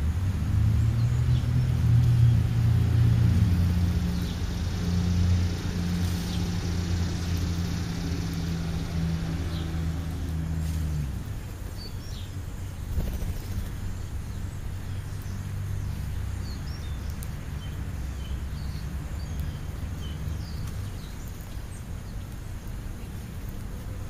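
A motor vehicle engine running with a steady low hum that cuts off about eleven seconds in, leaving a fainter low rumble. Short bird chirps come in the second half.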